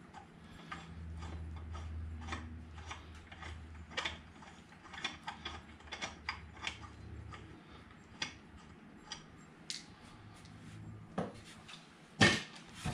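Ratchet wrench with a socket clicking in short runs as lug nuts are turned on an ATV's wheel hub. A sharp, loud knock comes just before the end.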